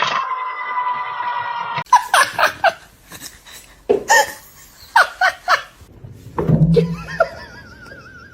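A person laughing hard in several short bouts, after a long held, pitched cry in the first two seconds.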